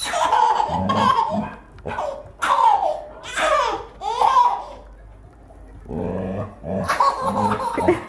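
A baby laughing in repeated bursts, with a pause of about a second just past the middle.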